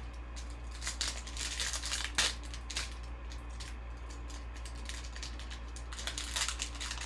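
Plastic and foil crinkling and rustling as trading-card packs and card sleeves are handled, in several short bursts, the loudest about two seconds in, over a steady low hum.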